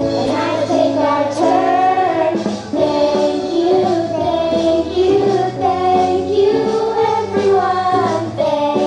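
A song: children singing a melody together over a musical accompaniment.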